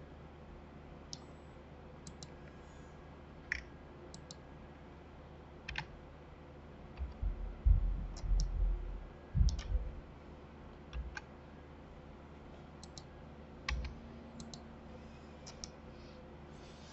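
Scattered computer mouse and keyboard clicks, a dozen or so spread unevenly. About seven to ten seconds in comes a cluster of louder, dull low thumps.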